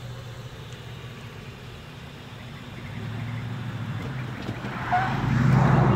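A car's engine running as it drives up close, a steady low hum that grows louder toward the end.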